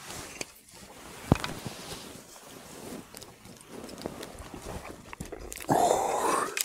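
Dry grass and dead leaves rustling and crackling as a hooked perch is hauled up the bank and handled on the ground. There is a sharp click about a second in and a louder burst of rustling near the end.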